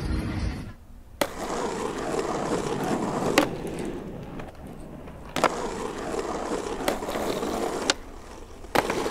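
Skateboard wheels rolling, broken by sharp clacks of the deck popping and landing, about four times.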